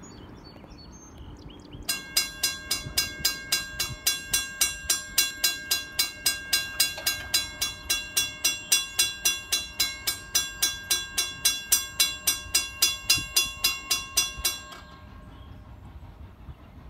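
Railroad crossing bell ringing rapidly, about three strikes a second, warning of an approaching train. It starts about two seconds in and stops a couple of seconds before the end, once the crossing gate arm is down.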